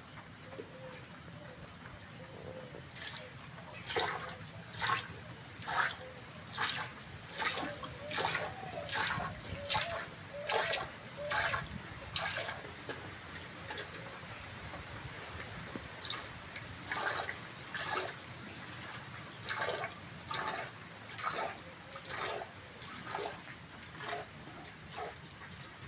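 Jets of milk squirting from a cow's teats into a partly filled steel pail as she is milked by hand, each squirt a short hiss in a steady rhythm of a little more than one a second. The squirting pauses for a few seconds about halfway through.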